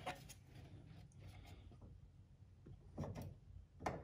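Faint clicks and knocks of a plastic control module being handled and lifted out of a car's relay box, with two louder knocks near the end.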